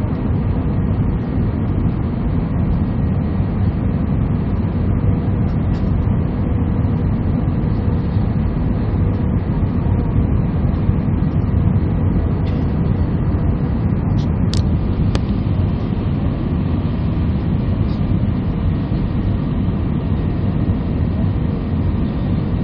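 Airliner cabin noise on final approach with flaps extended: a steady low rumble of engines and rushing air heard from inside the cabin by the wing. Two brief clicks sound a little past the middle.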